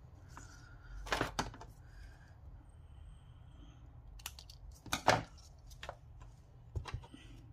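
Scissors snipping through a thin strip of paper, a few short, sharp cuts, among rustles and light taps of small paper scraps handled on a tabletop.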